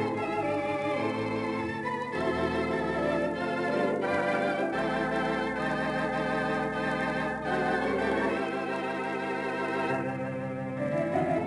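Theatre organ being played: full sustained chords over a pedal bass line, with a wavering tremulant on the upper notes and the bass note changing every few seconds.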